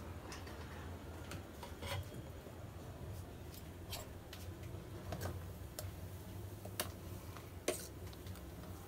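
Faint scattered clicks and light taps, about ten over several seconds, over a low steady hum, as a steel cooking pot of freshly blended milkshake is handled.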